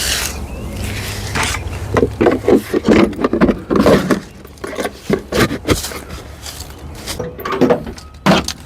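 A vehicle engine running with a steady low hum, under irregular knocks and clattering.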